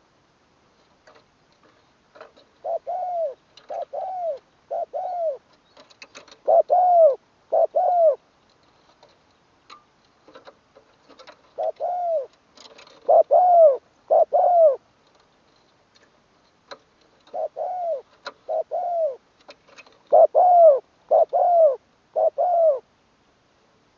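Spotted dove cooing: three phrases of five or six low, arched coos each, with pauses of a few seconds between phrases.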